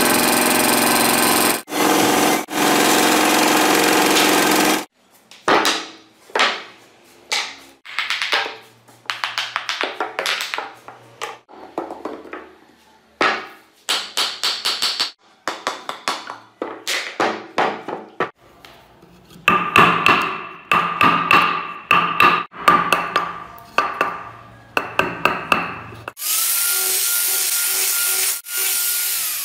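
A bandsaw cutting through a thick block of wood, a steady noise for about five seconds. Then many short, irregular bursts of a power tool biting into the wood as the car body is rough-carved. Near the end, an angle grinder with a sanding pad runs steadily with a whine, sanding the wood.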